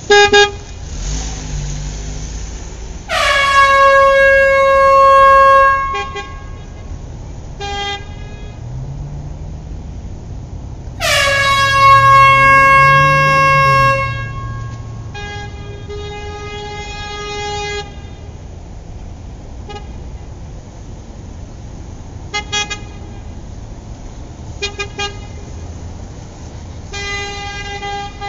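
Vehicle horns: two long, loud blasts of about three seconds each, their pitch dropping sharply at the start and then holding, followed by several shorter, lower honks, over a steady hum of traffic.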